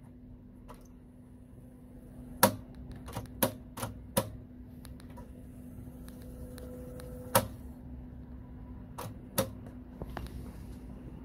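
Akai GX-210D reel-to-reel tape deck transport running: a steady motor hum with tape hiss while the reels wind at speed, broken by a series of sharp mechanical clicks and clunks from the function lever and transport engaging.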